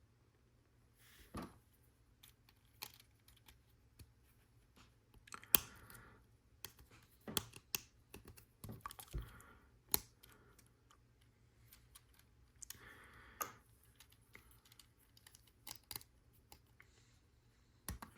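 Lego Technic plastic pieces being handled and pressed together: irregular sharp clicks and taps with brief rustling of parts, the loudest click about five and a half seconds in.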